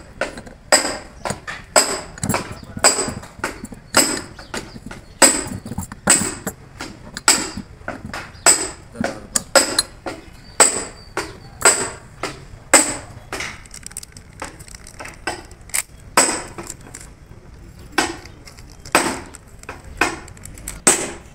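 Repeated sharp metal-on-metal strikes, about two a second, each followed by a brief high ring.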